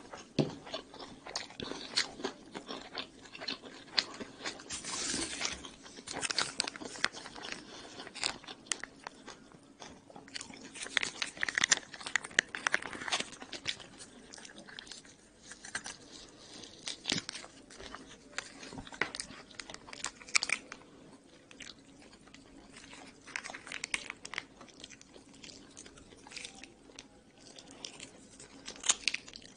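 Close-miked chewing and biting of crusty cheese pizza: irregular crunches and wet mouth clicks. In the second half a plastic ketchup sachet is torn open and squeezed.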